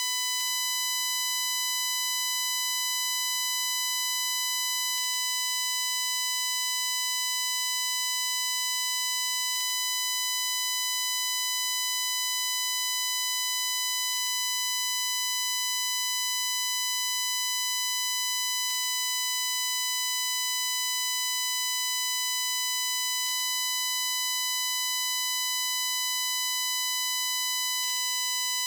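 Continuous shrill, high-pitched digital buzz from a recording glitch: one steady tone near 1 kHz with a dense stack of overtones, held at an even level, with faint ticks about every four to five seconds. It is the failed recording from a Shure MV88+ microphone on a Samsung Galaxy S22 Ultra, which buries the intended birdsong.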